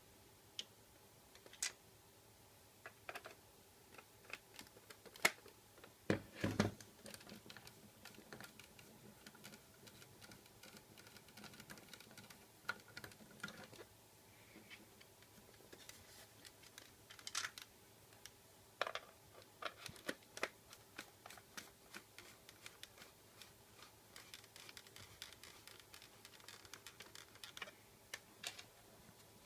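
Scattered light clicks and taps of small parts being handled, irregular and sparse, with a louder cluster of knocks about six seconds in.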